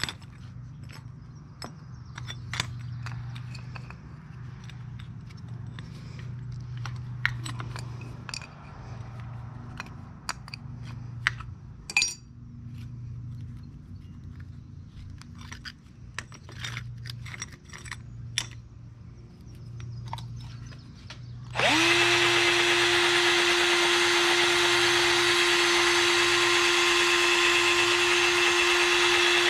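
Small metal parts and hand tools clicking and tapping as fittings are handled, over a faint pulsing hum. About 22 seconds in, a motor starts, its pitch rising briefly as it spins up, then runs at a loud steady whine with a hiss.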